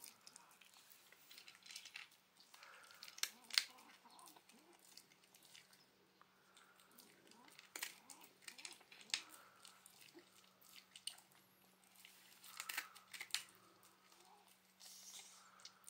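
Shiba Inu crunching and chewing dry kibble: irregular sharp crunches with quieter chewing between, the loudest crunches about 3.5 s, 9 s and 13 s in.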